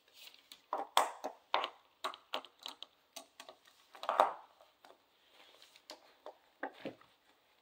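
Central Asian shepherd puppies mouthing toys and shuffling about: irregular clicks, scuffs and crinkles, loudest at about one second and again around four seconds.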